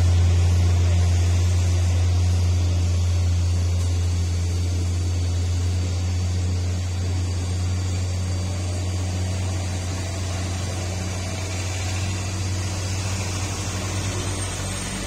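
A loaded Mitsubishi L300 pickup's engine pulling slowly up a steep hairpin, a steady low drone that slowly fades a little.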